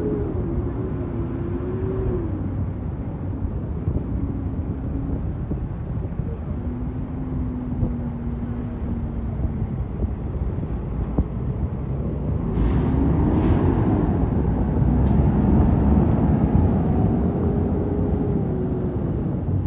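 Heavy truck engine running, its pitch rising and falling slowly. It gets louder about two-thirds of the way through, where a few short hisses break in.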